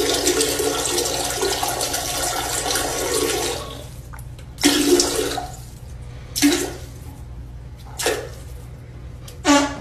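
Rushing water like a toilet flushing: one long gush of about four seconds, then four shorter gushes a second or two apart, over a steady low hum.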